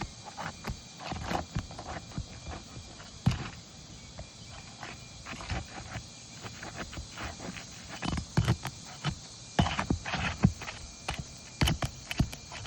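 Hand tools working asphalt roof shingles: irregular knocks, taps and scrapes, busier and louder in the second half.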